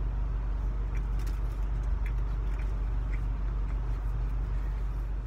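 Steady low hum of a car's cabin, with a few faint small mouth clicks from chewing a rice ball.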